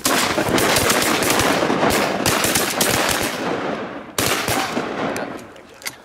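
A volley of shotgun fire from several hunters: rapid overlapping shots for about four seconds, then a second burst a little after four seconds in that trails off.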